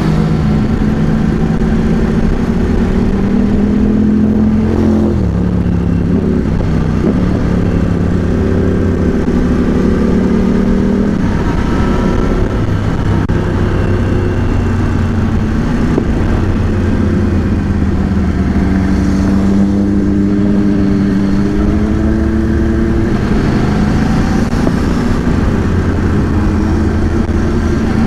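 Yamaha R1's inline-four engine under way, heard from inside the rider's helmet. Its pitch drops sharply about five seconds in, then climbs and falls again several times as the rider accelerates and backs off.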